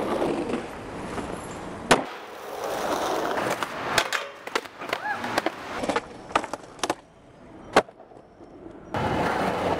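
Skateboard sounds from several short clips cut together: polyurethane wheels rolling on concrete, broken by several sharp clacks of the board popping and landing. The sound changes abruptly at each cut.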